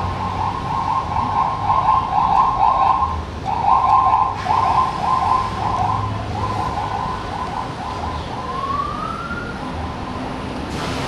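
A siren sounding: a loud, fast-wavering tone just under 1 kHz that breaks briefly about three seconds in, then fades after about eight seconds, followed by a short rising wail.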